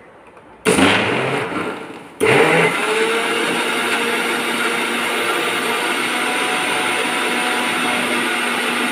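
Electric mixer grinder run in a short pulse of about a second and a half, starting just under a second in and winding down, then switched on again and running steadily, blending lime pieces, beetroot and sugar in water.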